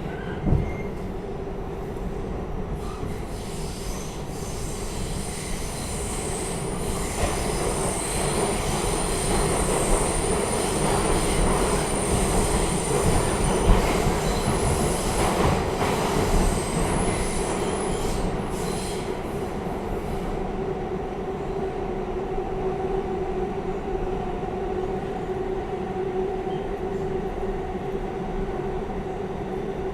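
New York City R46 subway car running between stations, heard from inside the car: a steady hum of wheels on rail, with a sharp knock just after the start. High-pitched wheel squeal sets in a few seconds in and dies away after about twenty seconds.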